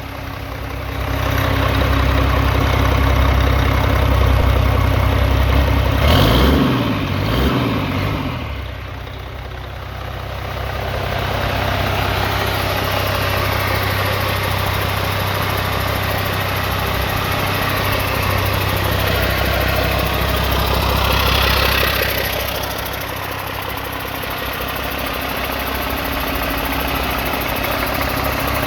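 2006 Mack AMI 11.9-litre inline-six diesel engine running on a test run, mostly at a steady idle. Its speed rises and falls about six seconds in, and the sound swells briefly again around twenty-one seconds in.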